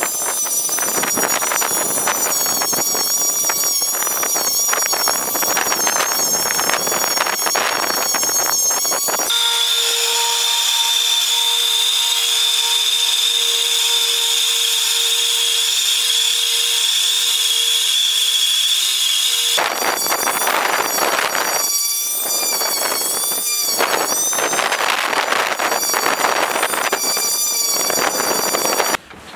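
Corded electric sander whining and grinding against a hard osage orange (hedge wood) walking stick. About nine seconds in the sound changes to a smoother, steady high whine for about ten seconds, then the rough sanding sound returns until near the end.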